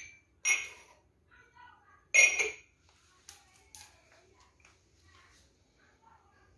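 Ceramic plant pots clinking against each other as they are handled and set down: three sharp, ringing clinks in the first two and a half seconds, the last the loudest, then a few faint knocks.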